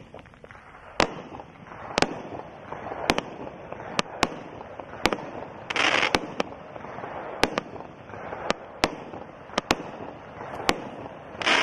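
A 70-shot consumer fireworks cake firing shot after shot, one sharp report about every second and sometimes two in quick succession, with the noise of the bursting stars between them.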